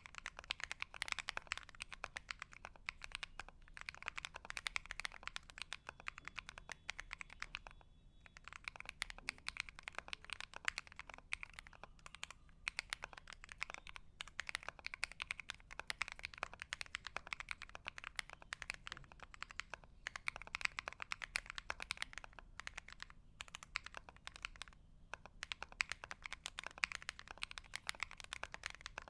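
Mechanical keyboard being typed on quickly and continuously, keys clacking several times a second with a few brief pauses, the keyboard resting on a fabric desk mat.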